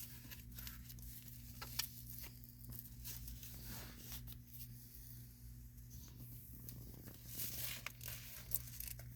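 Velcro fastener of a leather seat belt adjuster rasping, with rustling and small clicks of handling as it is wrapped around the seat belt, over a steady low hum.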